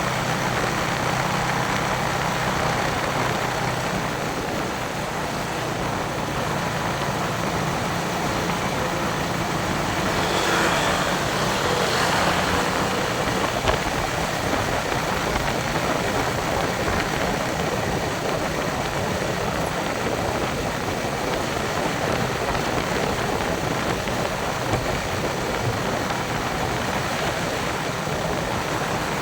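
Yamaha Vixion motorcycle's single-cylinder engine running while riding, under a steady rush of wind and road noise, with a brief louder swell about ten seconds in.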